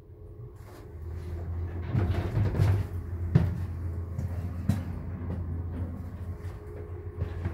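Passenger lift car starting off and travelling upward: a steady low hum from the drive comes in about a second in, with a few sharp knocks and clicks from the car and its doors.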